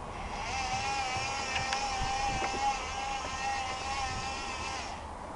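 Servis M6500 washing machine's motor whining as it turns the drum, a high, slightly wavering whine that stops about five seconds in. It sounds horrible because of freshly fitted motor brushes that have not yet bedded in; it is expected to quieten after a wash or two.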